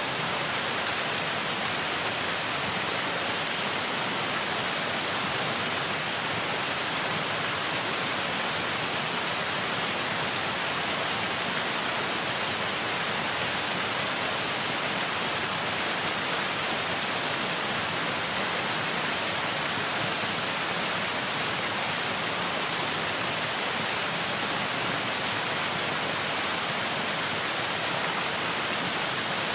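Television static from an untuned TV: a steady, even hiss that does not change.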